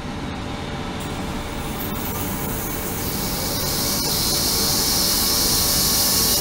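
Ultrasonic bath in a stainless-steel water tank running, giving a steady hiss and sizzle of agitated water over a low hum. The hiss grows noticeably louder and brighter about halfway through.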